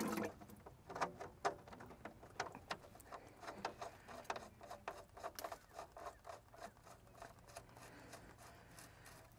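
Oil dripping from the Kobelco excavator's drain into a plastic 5-gallon bucket: faint, irregular ticks and pats, several a second.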